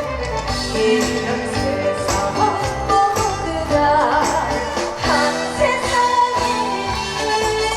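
Korean trot song performed live: a singer's voice over an amplified backing track with a steady beat, sounding through the PA.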